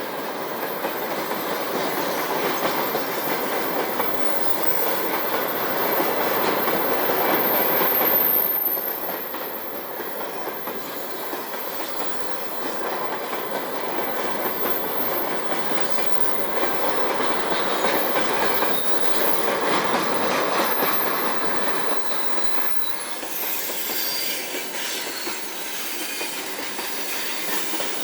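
Freight train wagons rolling past on the rails: a continuous rushing clatter of wheels that swells and eases twice, with faint high-pitched squeals on and off.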